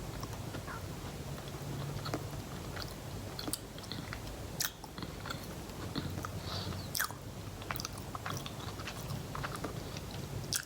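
Close-up biting and chewing of a Subway chocolate chip cookie with crispy edges, with scattered sharp crunchy clicks. A low steady hum runs underneath.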